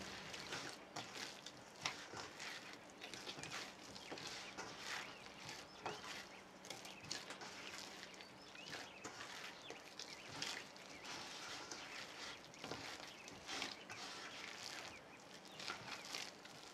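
Hands kneading soft, oiled yeast dough in a stainless steel bowl: faint, irregular squishing and slapping as the dough is pressed and turned.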